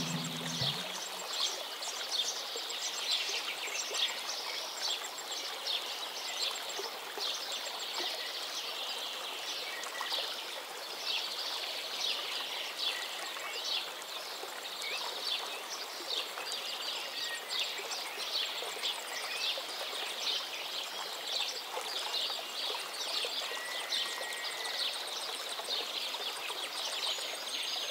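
Birds chirping rapidly and continuously over a steady hiss of running water, like a nature ambience track.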